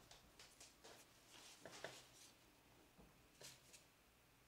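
Near silence, with a few faint, short swishes of trading cards being slid through the hands.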